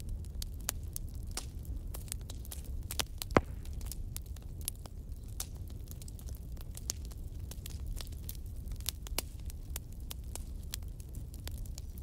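Small round watercolour brush tapping and stroking on paper: scattered sharp clicks and light scratches, one louder click about three and a half seconds in, over a steady low hum.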